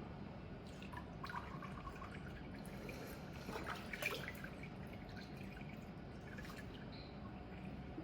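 Water being poured into the priming hole of an electronic booster pump, faintly trickling and dripping as it fills the pump and pipework to push out the trapped air.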